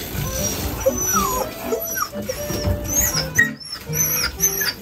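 Shetland sheepdog whining and crying in several short, high, wavering calls, frightened of the water during its bath.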